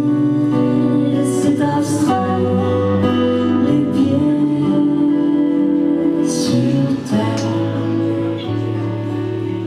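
A man singing live to his own electric guitar accompaniment, holding long sung notes over steady strummed chords.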